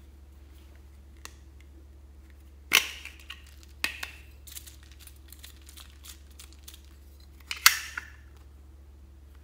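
Hard plastic clicks and snaps from a bow-shaped plastic makeup case being pried open by hand. There are sharp snaps about three and four seconds in and smaller clicks between, with the loudest snap near the end.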